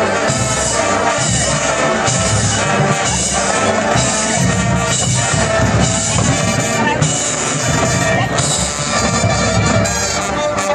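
Marching band playing a brass-led piece, horns and sousaphones over a steady drum beat.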